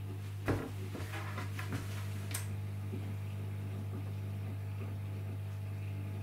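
Samsung WW10N645RBW front-loading washing machine rumbling with a steady low hum at the start of its cycle, before any water has come in. There are a couple of faint knocks in the first few seconds.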